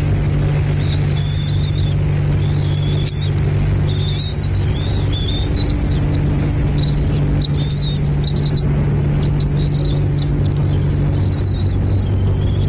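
Small birds chirping in quick, high-pitched runs, typical of nestlings begging to be fed, over a loud, steady low hum.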